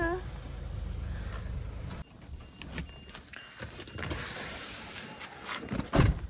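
Car sounds: a low rumble, cut off abruptly about two seconds in, then faint short repeated beeps. A couple of heavy thumps come near the end.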